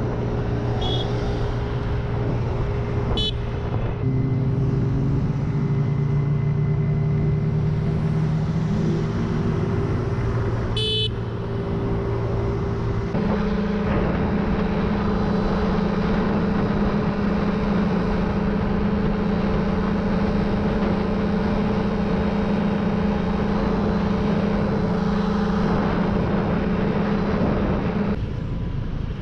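Motorcycle engine running steadily at cruising speed over wind and road noise, its pitch stepping up about 13 seconds in. A short horn beep sounds about 11 seconds in.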